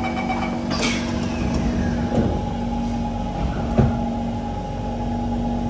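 Inside a Kawasaki C151 metro train: the door-closing chime beeps to an end and the doors shut with a knock just under a second in. About two seconds in, a new steady whine joins the carriage hum, with another knock a couple of seconds later.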